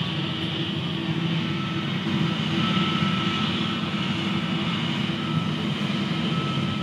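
Jet engines of an Airbus airliner taxiing on the apron, a steady rumble with a thin, even whine, heard through terminal glass.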